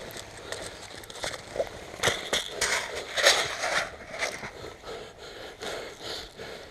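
Irregular crunching and rustling of a player moving on foot, with clothing and gear brushing close to the camera microphone and a few scattered clicks; busiest about two to three and a half seconds in.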